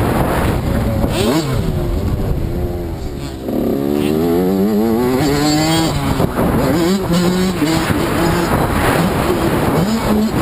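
Dirt bike engine revving hard and easing off over and over as the bike is ridden around a motocross track, its pitch climbing and falling with the throttle. About three seconds in, the engine note drops briefly and then climbs again in a rising whine.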